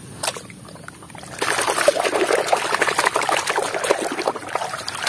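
Water splashing and sloshing as a hand swishes and scrubs a muddy toy truck in a tub of foamy, soapy water. It starts about a second and a half in, a busy run of many small splashes.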